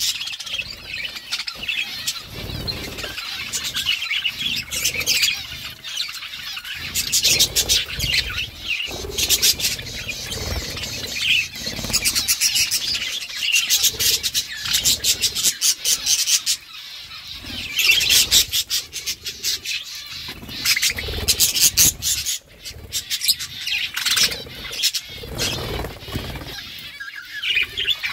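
A group of budgerigars chirping and chattering continuously, with many short sharp clicks and rustles mixed in.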